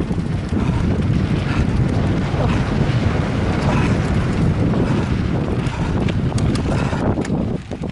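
Wind rumbling steadily on the microphone of a camera carried on a moving mountain bike, with scattered clicks and rattles, dipping briefly near the end.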